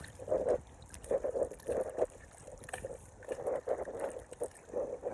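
Water sloshing and splashing in irregular bursts as a snook is held in the water and moved to revive it before release.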